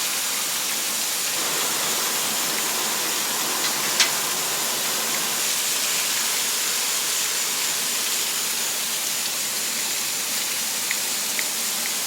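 Steady rushing of the Potomac River's falls and rapids, an even roar of water, with one sharp click about four seconds in.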